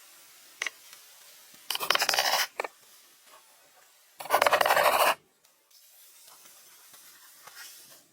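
Two short scraping bursts, each under a second, with a few light clicks around them.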